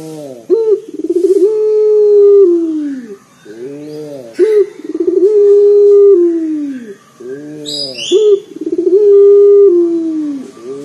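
Barbary (ringneck) dove cooing over and over in a deep, bassy voice. Each coo is a short rising-and-falling note followed by a long held note that drops away at the end, about three coos in all. A brief high chirp cuts in about eight seconds in.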